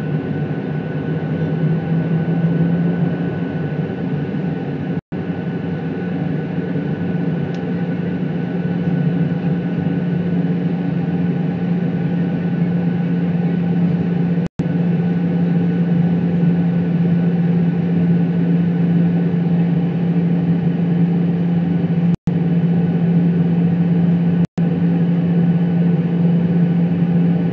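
Boeing 737-800 cabin noise: its CFM56 jet engines running with a steady low drone and a thin high whine as the airliner taxis. The sound cuts out for an instant four times.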